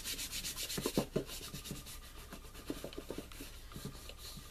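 Palm rubbing a freshly glued cardstock panel flat onto the side of a paper gift box: quick back-and-forth strokes of skin on paper during the first second, then scattered light taps and handling of the box.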